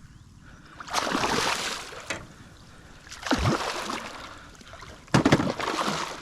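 Water splashing in three separate bursts about two seconds apart: a hooked snakehead thrashing at the surface beside the boat.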